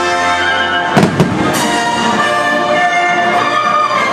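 Orchestral music playing, with two firework shells bursting in sharp bangs in quick succession about a second in.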